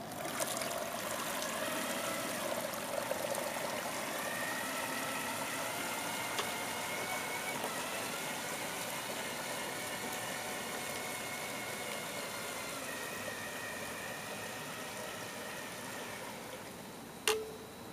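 Small electric motor, a 7.2-volt cordless-drill motor driving a model paddlewheel towboat, running with a steady whine that drifts a little in pitch, over the wash of the stern wheel churning water. The whine slowly fades, and there is a single sharp click near the end.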